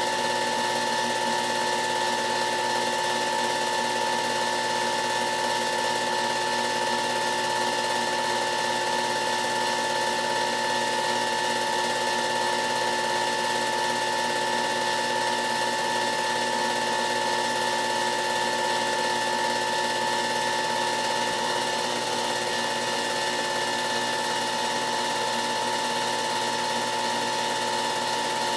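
A film projector running: a steady mechanical whir with a constant high whine over hiss. No race-car engines are heard.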